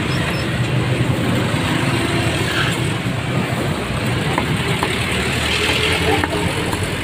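Busy street ambience: motor vehicle engines running steadily nearby, with scattered voices in the background.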